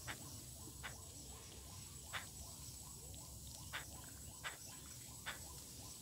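Birds' beaks tapping on concrete as they peck at scattered corn grains: about six short, sharp taps at irregular intervals over a faint steady background.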